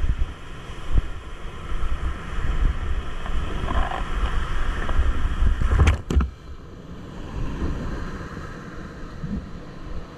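Whitewater rushing and splashing around a kayak, heard close on an action camera with water and wind buffeting the microphone. About six seconds in comes a hard splash as the boat crashes through a wave, and after it the rush of the rapid is quieter.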